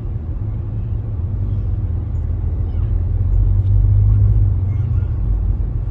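Steady low rumble of a car driving on a freeway, heard from inside the cabin, swelling a little about two-thirds of the way through.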